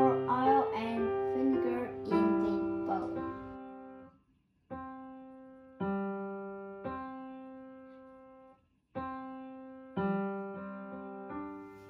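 Background piano music: slow notes and chords, each struck and left to fade. It cuts out briefly twice.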